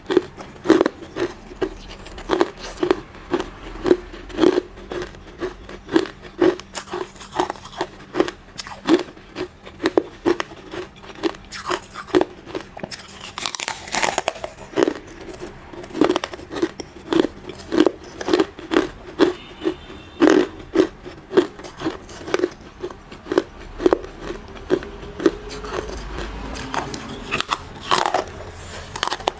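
Hard ice being bitten and chewed close to the microphone: loud, crisp crunches repeating about twice a second.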